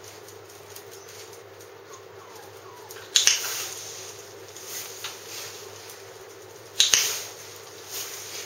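Dog-training clicker clicked twice, about three and a half seconds apart, each click short and sharp with a brief echo, marking the terrier's circling of the bottle.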